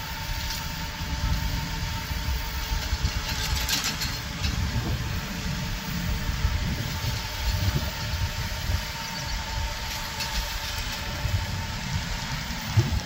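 Small compact tractor's engine running steadily, a low rumble with a faint steady whine above it.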